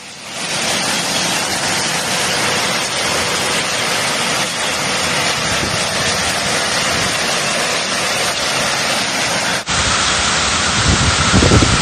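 Heavy downpour of hail and rain: a dense, steady hiss. Near the end, after a cut to another recording, irregular low rumbling from gusts joins the downpour.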